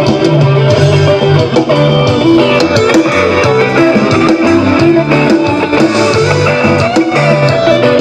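Instrumental break in a Bisaya-English pop song, with strummed guitar over bass and drums and no singing.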